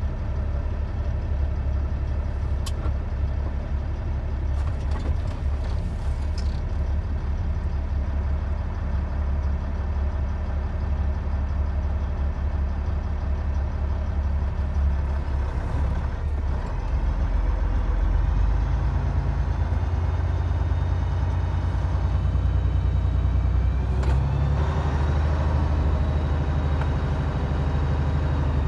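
Semi-truck's diesel engine running, heard from inside the cab as a steady low rumble. The engine note changes about halfway through and again a few seconds later.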